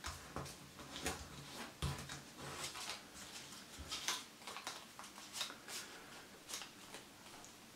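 A 10-euro banknote crinkling and rustling between the fingers as it is folded and creased, in quick irregular crackles, with a soft low bump about two seconds in.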